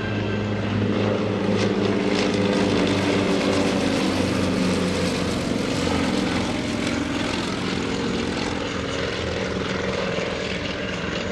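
Piston engines and propellers of two aerobatic propeller planes flying low together, a steady drone that builds to its loudest about two to three seconds in. The engine pitch shifts slowly as the planes manoeuvre and pass.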